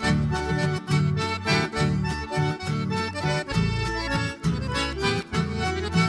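Accordion-led folk dance music with a steady, pulsing bass beat.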